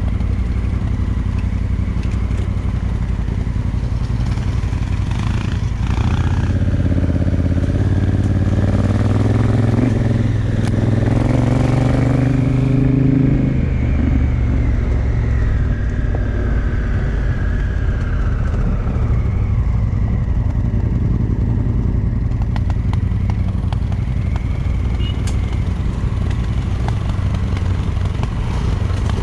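Honda Africa Twin Adventure Sports parallel-twin engine running under way on a gravel track, with tyres crunching over the stones. The engine note climbs as the bike pulls harder, then falls away about halfway through as the rider eases off.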